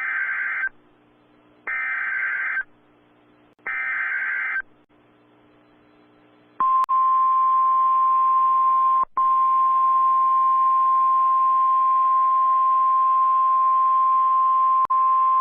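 Emergency Alert System signals: three short warbling SAME data bursts of about a second each, then a single steady attention tone (the NOAA Weather Radio 1050 Hz tone) that begins about six and a half seconds in, with a brief dropout. They announce a severe thunderstorm warning.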